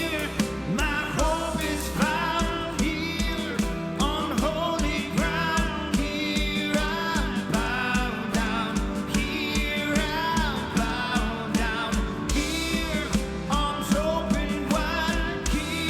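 Live worship band playing a song, with drums keeping a steady beat under bass, guitar and a sung melody.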